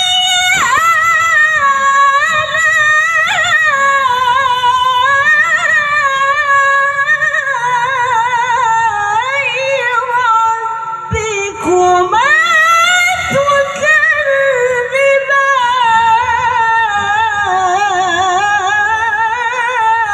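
A woman reciting the Qur'an in the melodic tilawah style into a hand microphone, holding long ornamented notes that waver up and down. The line breaks off briefly about eleven seconds in, then a new phrase begins.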